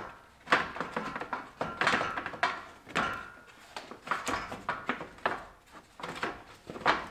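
Irregular knocks, clicks and scrapes of a hard plastic radiator cooling fan and shroud being worked into place in the engine bay.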